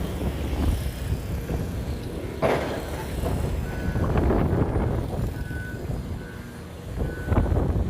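Heavy construction machinery running, with a reversing alarm beeping at intervals and a sharp knock about two and a half seconds in.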